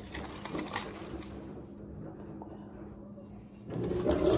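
Honeycomb kraft-paper packing wrap crinkling and rustling as it is handled and pulled from a cardboard box, quieter for a couple of seconds in the middle and louder again near the end.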